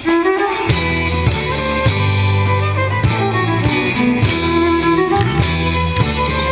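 Instrumental intro of a pop song: a melodic lead line over a steady bass and drum beat, with no vocals yet.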